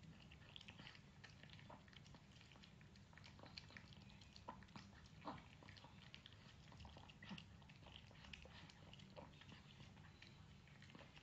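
A small dog eating soft food from a bowl: faint, irregular wet chewing and lapping clicks throughout, over a steady low hum.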